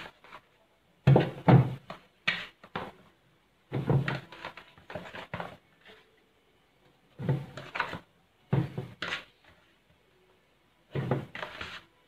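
Tomatoes being set by hand into a plastic fridge crisper drawer: short clusters of soft knocks and clatter against the plastic, coming in irregular bunches a second or two apart.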